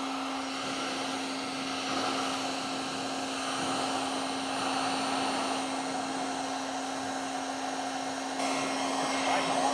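Black+Decker electric heat gun running steadily: a constant rush of air with a steady hum under it, as it heats paint protection film being worked over a door edge.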